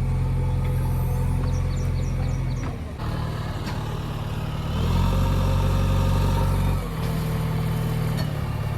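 JCB 3DX backhoe loader's diesel engine running, its revs dropping about three seconds in, rising again at about five seconds and falling back near seven seconds. A fainter whine rides above it while the revs are up, and a quick run of light ticks comes early on.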